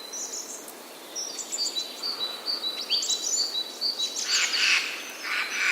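Spring forest birds singing: high chirps, then from about a second in a bird repeating a short, high whistled note about three times a second, with a louder burst of chattering calls about four seconds in.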